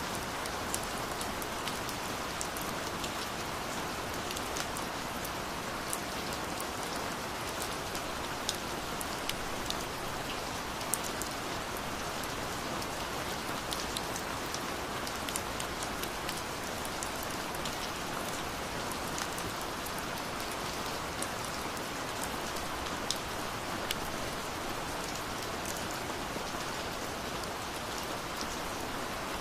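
Gentle rain falling steadily: an even wash of rain noise with many scattered, sharp individual drop hits on top.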